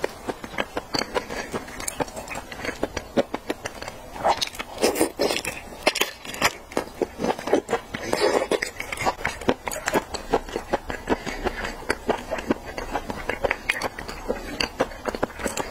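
Close-miked wet chewing and lip smacking while eating raw red shrimp sashimi: a dense, irregular run of small sticky clicks and squelches.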